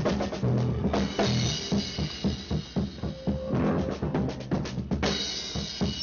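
Drum kit playing a quick, steady beat during a band rehearsal, with cymbal crashes near the start and again about five seconds in.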